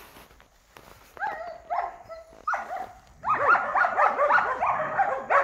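Dog barking and yelping: a few separate high calls about a second in, then a fast, dense run of overlapping calls from about three seconds in.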